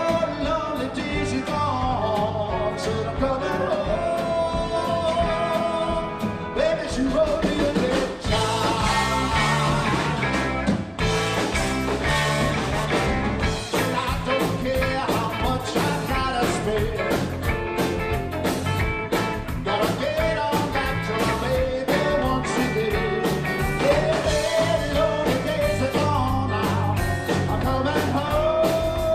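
Live rock band playing, with a lead voice singing over keyboard, electric bass and drums.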